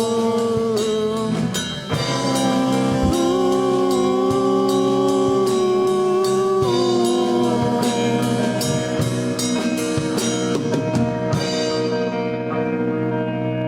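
Live band playing an instrumental passage: drum kit with steady cymbal and drum strokes under held guitar chords. The drums stop about eleven seconds in and the chords ring on.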